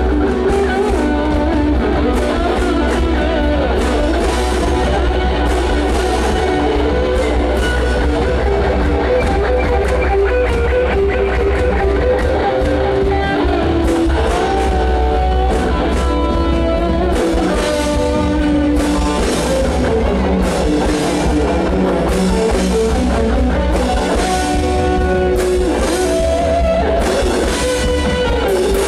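Live rock band playing loud: an electric guitar plays a melodic lead line with pitch bends over a drum kit and a heavy low end.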